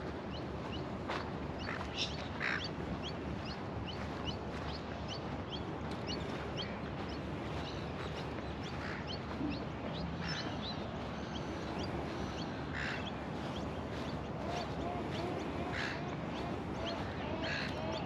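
Birds calling over a steady outdoor hiss: many short, high, rising chirps repeated throughout, and a run of lower, wavering calls near the end.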